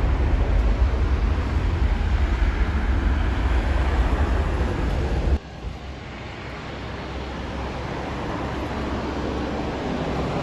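Steady rumbling noise, heaviest in the low end, that cuts off abruptly about five seconds in; a quieter rumble then builds slowly.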